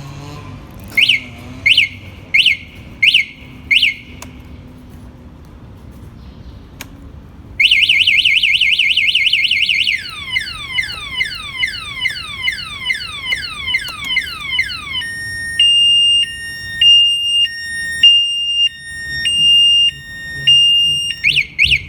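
Motorcycle anti-theft alarm siren cycling through its tones. First come five short rising chirps, then a fast warble, then a run of falling sweeps at about three a second, then a slower two-tone high-low alternation, and near the end two more quick chirps.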